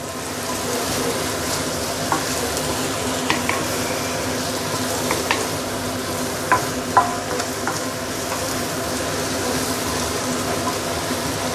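Chicken and potatoes in curry paste sizzling steadily in a stainless steel wok over high heat while being stirred with a wooden spatula, with a few knocks and scrapes of the spatula against the pan.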